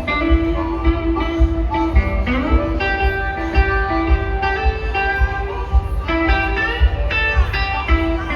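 Live blues band playing an instrumental break: held and bending lead notes over a steady drum beat and bass.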